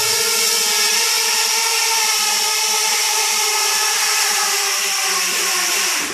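A mini quadcopter's electric motors and propellers give a steady, many-toned whine as the craft sits low over the floor. Near the end the pitch falls and the sound cuts off as the motors spin down.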